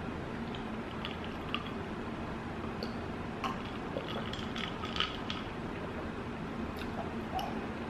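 Close-miked wet mouth sounds of eating and drinking: scattered short clicks and squishy smacks, busiest around the middle, over a steady low background hum.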